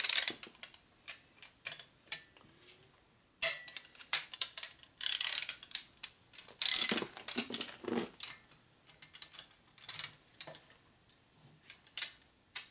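Hand ratchet wrench clicking in short quick runs as the shovelhead's cylinder head bolts are run down, with scattered metallic clinks of the tool on the bolts in between.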